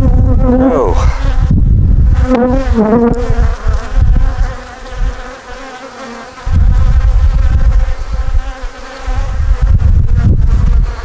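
A colony of honeybees buzzing around an open hive as its frames are pulled, a steady hum with a loud low rumble beneath that drops away twice in the middle.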